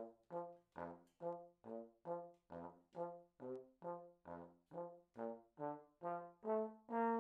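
Tenor trombone with F attachment playing a bouncy string of short, separated notes that drop repeatedly to low Fs, about two to three notes a second. The notes are played with relaxed, easy puffs of slow air for the low register, and the passage ends on a slightly longer note.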